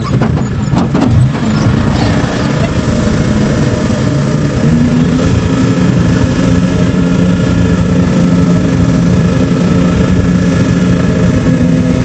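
Kubota DC70 Pro combine harvester's diesel engine running steadily under load as the machine harvests rice, with a few sharp clicks near the start.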